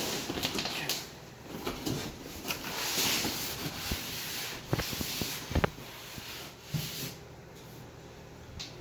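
Rustling and handling of TV packaging for about five seconds, with a few sharp knocks in the middle, then quieter with a couple of light clicks near the end.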